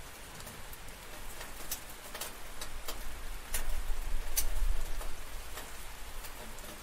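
Steady rain hissing, with scattered sharp drop ticks, and a deep low rumble of thunder swelling in the middle.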